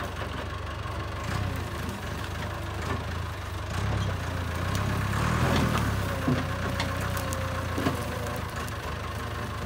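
Diesel engine of a 1989 CAT 416 backhoe running steadily while the machine digs in frozen ground, with a few light knocks and a thin whine from about halfway to near the end.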